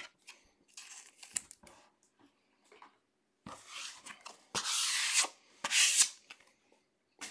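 Opened foil trading-card pack wrappers rustling and crinkling as they are gathered up by hand, in three short bursts in the second half, after a few light taps.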